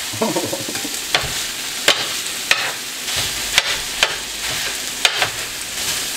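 Ground beef and onions sizzling on a griddle while a metal bench scraper and spatula chop through them, the blades clacking sharply against the griddle about once or twice a second.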